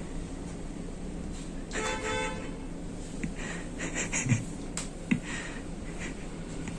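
A short horn toot, one steady pitched note lasting under a second, about two seconds in, followed by a few light clicks and taps over a low background hum.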